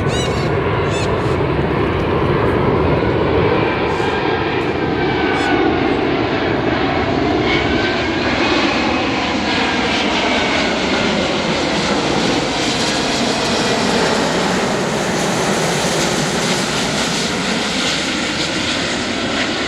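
Jet airliner passing low overhead, its engine noise loud and steady, with whining tones that sweep down and back up in pitch and a hiss that gets brighter in the second half.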